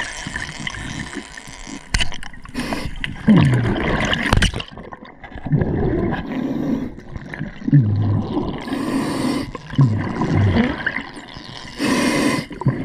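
Underwater sound of a scuba diver breathing through a regulator: hissing inhalations and low, gurgling exhaled bubbles, with a few sharp knocks.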